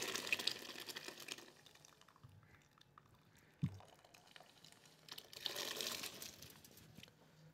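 Boiled chickpeas and their cooking water pouring from a pot into a steel bowl, fading out within the first second or so. A single soft knock comes about three and a half seconds in, and near the end a faint scraping as the last chickpeas are tipped and scraped out of the pot.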